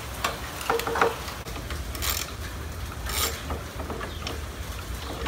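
Light clicks and knocks, then two brief rustling scrapes about two and three seconds in, from hands and a small hand tool working the factory powertrain control module loose from its mount in the truck's engine bay. A steady low hum runs underneath.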